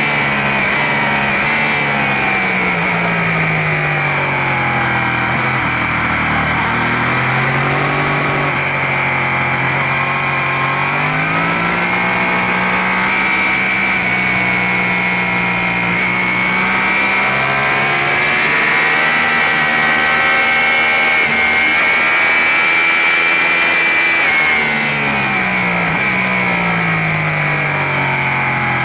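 Sport motorcycle engine heard onboard at track speed under a heavy rush of wind; the revs drop away as the bike brakes and downshifts, climb again, hold steady, and drop again near the end as it slows into another corner.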